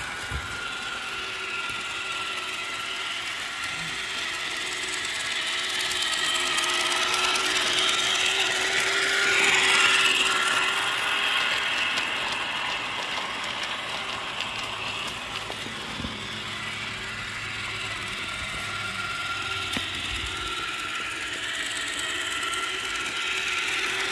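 Battery-powered O-gauge toy train running around the track, its geared motor whining and its wheels clattering over the rails. The sound grows louder to a peak about ten seconds in as the train passes close by, then fades as it moves away.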